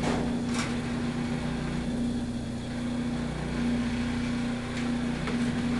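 Steady electric motor hum of an industrial sewing machine running, with a few light clicks.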